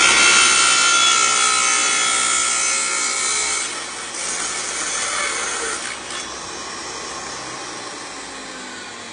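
Wet tile saw's diamond blade cutting through metal Schluter L-trim: a loud, high grinding screech for nearly four seconds, a shorter second pass, then the saw running on more quietly and fading near the end.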